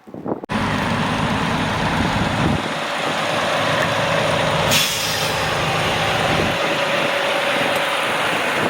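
A large vehicle's engine running amid wind and road noise, with a brief sharp hiss about five seconds in.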